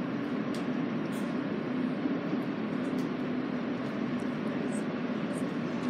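R160A subway car standing with its doors open, its onboard equipment giving a steady, even hum, with a few faint ticks over it.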